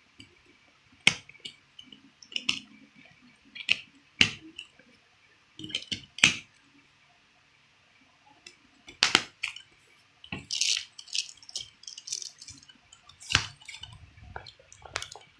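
Plastic Blu-ray case and discs being handled: about ten sharp clicks and snaps at irregular intervals, with light rustling between them.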